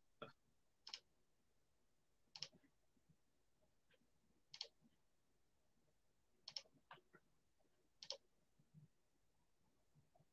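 Near silence broken by about seven faint, scattered clicks, the clicking of a computer being worked to bring up a video.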